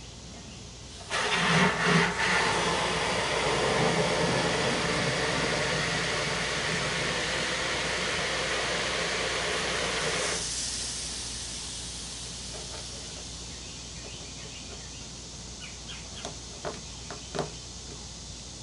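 Aerosol can of Great Stuff expanding foam spraying through its dispenser straw into a hollow cooler lid: a hiss that starts about a second in, sputtering at first, runs steadily for about nine seconds and then stops. A few faint clicks follow near the end.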